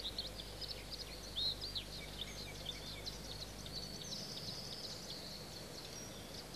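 Small songbirds chirping with quick high notes, joined about four seconds in by a thin, high buzzing trill.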